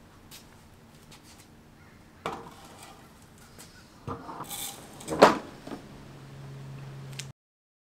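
Knocks and clatter of a Concept2 rowing machine being wheeled and its rail lowered onto a concrete floor, with several sharp knocks and the loudest one about five seconds in. A low steady hum follows before the sound cuts off.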